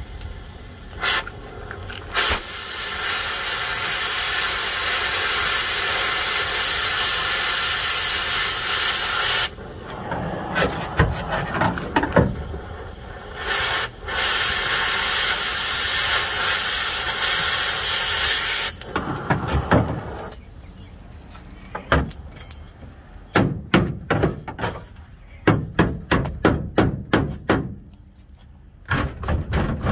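Oxy-fuel cutting torch cutting through rusty steel: the loud hiss of the cutting jet runs for about seven seconds, stops, and runs again for about five seconds. A run of sharp clicks and crackles follows near the end.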